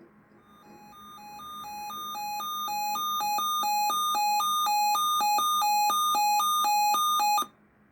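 A weather radio receiver's alert alarm sounds: two beeping tones alternate high and low about twice a second, growing louder over the first few seconds. It cuts off suddenly about seven and a half seconds in. The alarm signals an incoming Severe Thunderstorm Watch.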